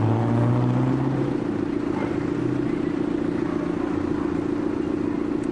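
A motor vehicle engine running with a steady low hum, its lowest tone strongest for about the first second and then easing off.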